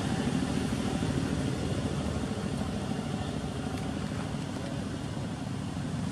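Wind buffeting the microphone outdoors: a steady, uneven low rumble with a fainter hiss above it.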